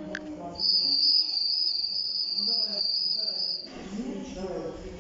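Honor 9X ringtone sounding like a cricket: a high, steady trill held for about three seconds that cuts off suddenly, played through the phone's speaker.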